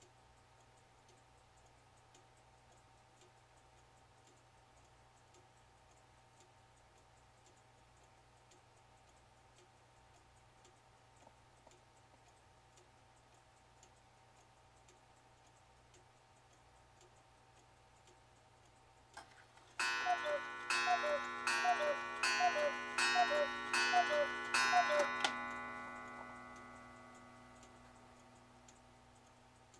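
8-day cuckoo clock ticking faintly, then, after a click in the movement, striking the hour: a run of two-note falling cuckoo calls, each with a sharp strike, and the ringing dies away over a few seconds afterwards.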